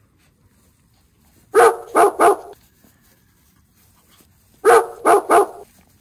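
A dog barking in two bursts of three quick barks each, the first about a second and a half in and the second near the end.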